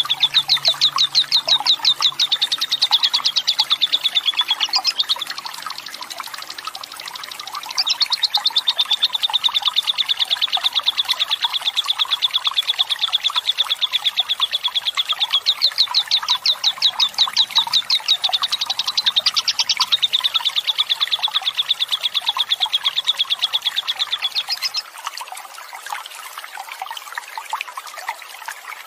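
Lovebird giving its long chattering 'ngekek' trill, a fast rattle of high, rapidly repeated notes. A run of about five seconds is followed by a gap of about three seconds, then a long run of about seventeen seconds that stops near the end. Trickling, flowing water runs underneath and continues alone after the trill stops.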